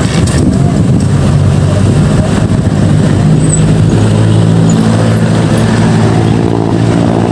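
Road traffic noise with a motor vehicle's engine running steadily close by. Its low hum grows stronger about three and a half seconds in.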